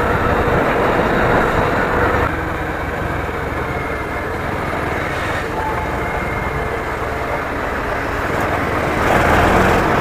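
Motorcycle running along a road, heard from the rider's seat as a steady mix of engine and rushing noise. It drops quieter about two seconds in as the bike slows and picks up again near the end.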